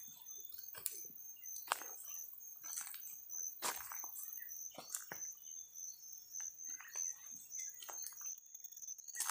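Footsteps crunching over dry crop stubble and loose soil, roughly one step a second, each a short crackle. A steady high-pitched tone runs underneath, as from insects.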